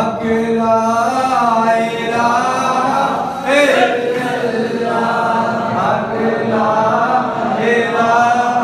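Men's voices chanting together in a devotional recitation, with long held, drawn-out notes over a steady low held tone.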